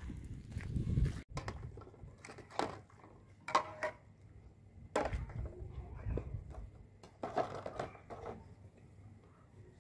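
Footsteps on a gravel dirt road for about a second, then dishes being washed by hand in plastic basins: water splashing and dishes knocking against each other every second or so.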